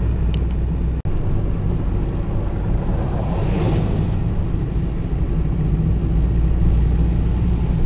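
Steady low rumble of a car driving slowly on a snow-covered road: engine and tyre noise, with a short swell of hiss about halfway through and a brief break about a second in.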